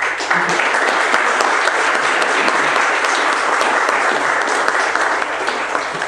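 Audience applauding. The clapping starts suddenly, holds steady, and dies down near the end.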